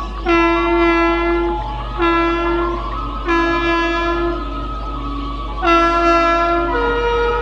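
Air horn of an Indian Railways WAP-7 electric locomotive sounding a series of five loud blasts as the train approaches. The fifth and last blast is on a higher note.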